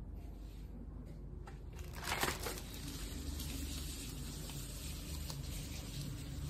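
Plastic packaging and cardboard rustling and crinkling as the parts of a TV wall-mount bracket are handled, with a slightly louder rustle about two seconds in.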